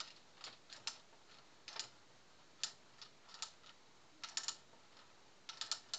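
Light, scattered clicks and taps of steel parts being handled and fitted onto a screw jack's threaded spindle during reassembly, with quick little clusters of clicks about four seconds in and again near the end.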